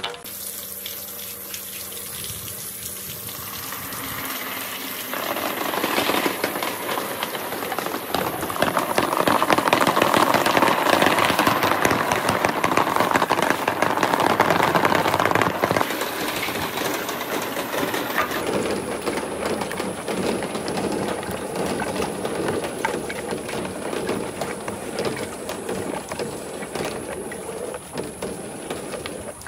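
A mass of marbles rolling and clattering down a marble run in a dense, continuous rush of clicks. It swells over the first several seconds, is loudest in the middle, then eases off somewhat but keeps going.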